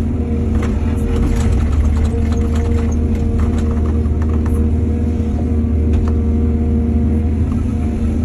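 Diesel excavator engine running steadily under load, with scattered clatter and scraping, densest in the first few seconds.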